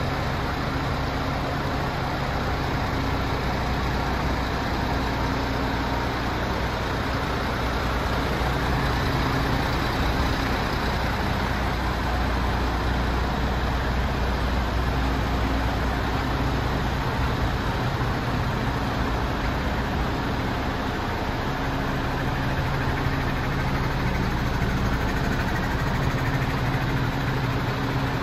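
Diesel engine of a MAN TGX 26.480 tractor unit idling steadily, a low even drone.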